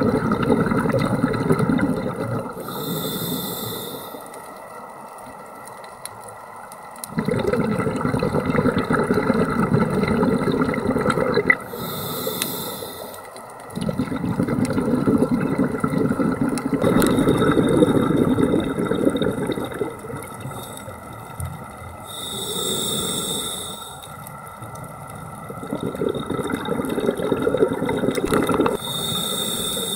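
Scuba diver breathing through a regulator underwater: each breath is a short, high hiss as air is drawn in, followed by a long bubbling rumble as the exhaled air bubbles out. Four breaths are heard, roughly one every nine seconds.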